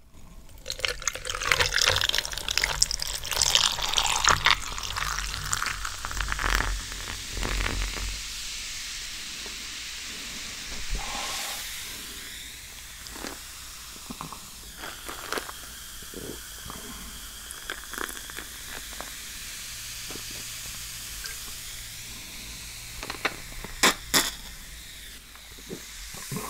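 Kombucha poured into a glass for the first several seconds, followed by a steady fizzing hiss from the carbonated drink. A few small taps sound through it, and two sharp clicks come near the end.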